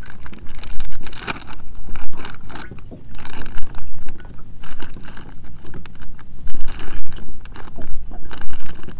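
Fishing tackle being rummaged through for a soft-plastic spade-tail jig: irregular clattering, rattling and rustling of lures and plastic packs, with several louder clatters.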